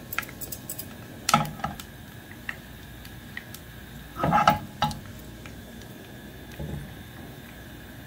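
Slivered almonds frying in ghee in a pan, with scattered small crackling ticks. Louder clattering knocks come about a second in and again around four and a half seconds in.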